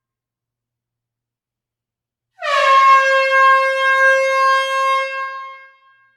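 Air horn sounding one long blast about two and a half seconds in: its pitch dips slightly at the start, holds steady for a few seconds, then fades out. The blast is recorded in a close hall.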